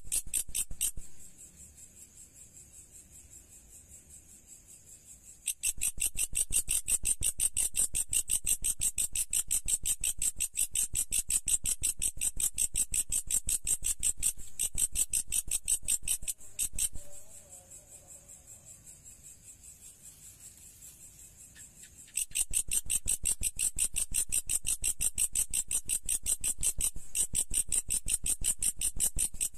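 Orthopteran insect stridulating: a fast, even train of high-pitched chirps. It runs loud for long stretches, with a fainter spell shortly after the start and another in the middle.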